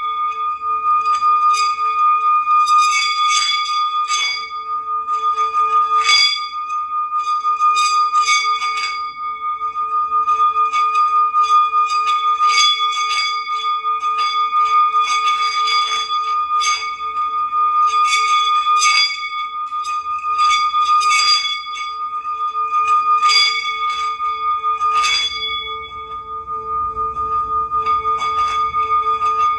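Meditative healing-sound music: bells struck every second or two, each stroke ringing out over two steady held tones, one low and one high.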